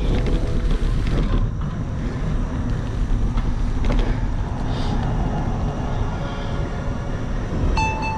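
Wind buffeting the microphone and bicycle tyres rolling over asphalt while riding at speed, a steady low rushing rumble. A short high tone sounds near the end.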